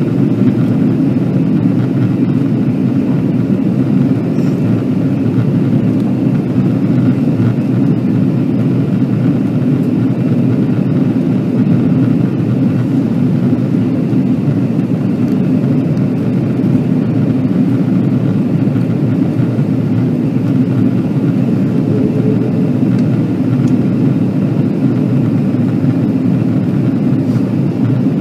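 Cabin noise of an Airbus A330-200 airliner in cruise-like flight, heard beside the wing: a steady, deep drone of the jet engines and the air rushing past the fuselage, unchanging throughout.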